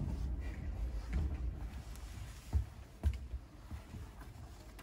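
Handling noise from a portable goal being assembled: light knocks and rustling of its poles and net, with two low thumps about two and a half and three seconds in.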